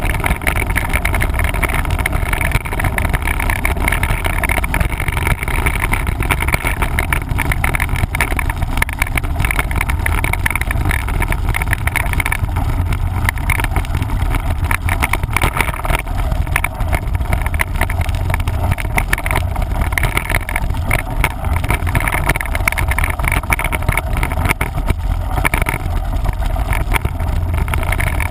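Steady wind rumble buffeting the microphone of a camera riding along on a mountain bike, with the clatter and rattle of the bike over rough trail.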